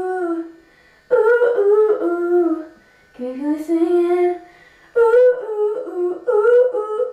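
A young girl singing a melody in high held notes, in short phrases of about a second or so with brief breaths between.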